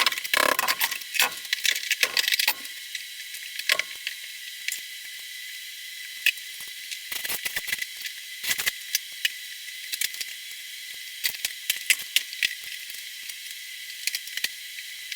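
Irregular clicks, knocks and rattles of hand work on a wall being torn down to the studs, busiest in the first couple of seconds, over a steady hiss.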